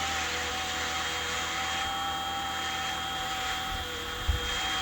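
Fly Wing FW450 RC helicopter in flight: its electric motors and rotors make a steady hum, with a thin high-pitched scream from the direct-drive electric tail motor. A low thump comes near the end.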